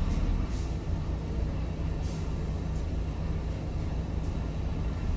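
Vehicle engines running at low speed in slow traffic, a steady low rumble heard from inside a vehicle cab, with a few brief faint hisses.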